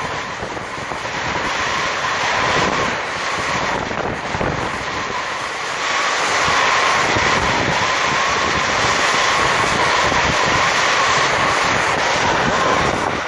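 Propane torch flame hissing steadily as it blasts the side of a dog chew bone, a little louder from about six seconds in, with wind gusting on the microphone.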